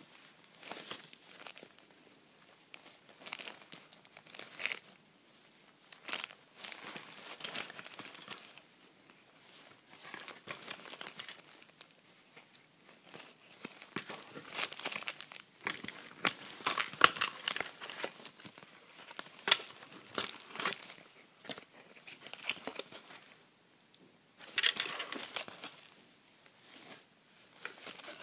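Plastic packaging crinkling and rustling as small wrapped items are handled, in irregular bursts with scattered sharp clicks and taps.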